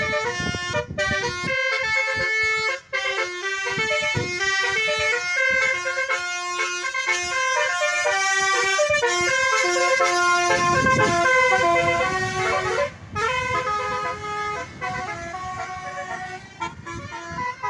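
Basuri 'telolet' multi-tone air horns on a bus playing a melody: several horn tones sounding together and stepping from note to note in quick succession. A low rumble runs underneath at times, strongest a little past the middle.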